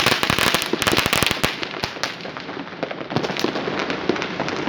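Fireworks and firecrackers going off all around: a dense rapid crackle for the first second and a half, then thinner, scattered bangs and pops over a steady hiss of distant bursts.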